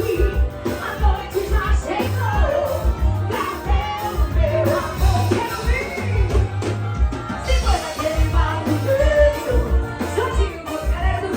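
Forró band playing live: a singer's melody over electric bass and a steady, regular drum beat.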